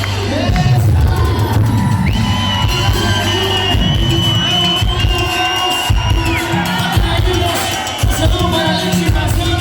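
Live cumbia band playing an instrumental passage with a steady beat, a long high held note running from about two seconds in to about six seconds in.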